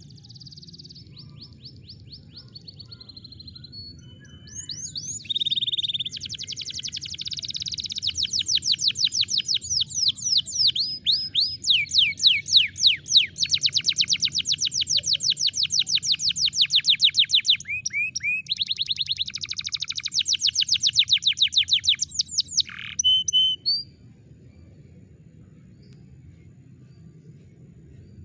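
Domestic canary singing a long, loud song of fast trills and rolls, the phrases changing speed and pitch. It starts about four seconds in and stops shortly before the end, over a soft steady low background.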